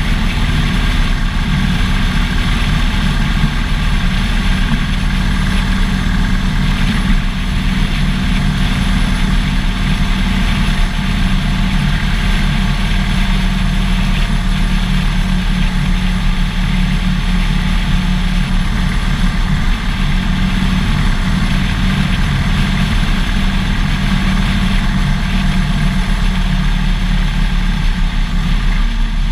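Harley-Davidson Dyna Fat Bob's air-cooled V-twin engine running steadily while cruising at freeway speed, with constant wind and road noise.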